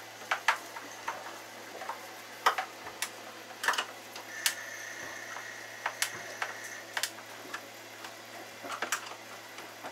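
Scattered clicks and taps of a hand tool and loose metal fittings as screws are undone to take down an interior panel, over a steady low hum, with a faint thin high whine for about two seconds near the middle.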